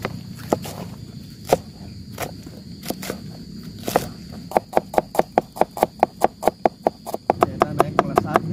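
Kitchen knife chopping spring onions and shallots on a plastic cutting board. The first few seconds hold a few scattered chops, then from about halfway there is quick, even chopping at about three strokes a second.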